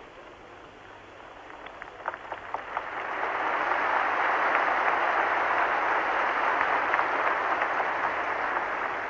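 Arena crowd applauding: a few scattered claps about two seconds in, swelling into steady, loud applause about a second later.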